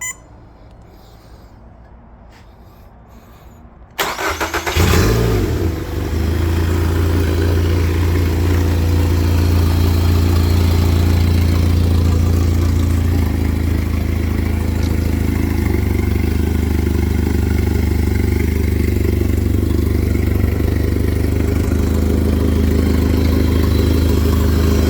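Honda 115 hp inline-four EFI four-stroke outboard cranked by its electric starter about four seconds in, catching within about a second and then idling steadily.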